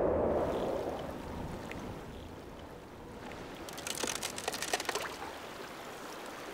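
A low rushing sound fades out over the first two seconds. Then water laps around thin plates of floating river ice, which click and crackle against each other for a second or so, about four seconds in.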